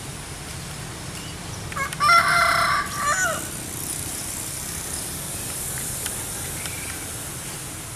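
A rooster crowing once, about two seconds in, a call of about a second and a half that bends down in pitch at its end. Under it runs a steady low background rumble.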